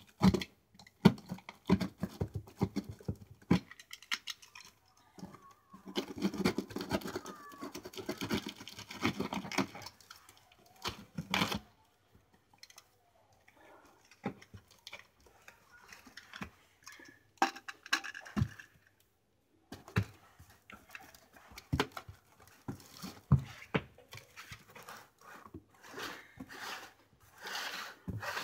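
Utility knife cutting through a cardboard box wrapped in clear packing tape: irregular scraping and crackling strokes that come in bursts, the longest run about six seconds in, with the box being handled between cuts.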